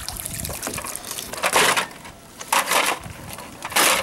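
Water splashing and pouring in three short bursts, draining from a waterlogged toy RC truck pulled out of the pool.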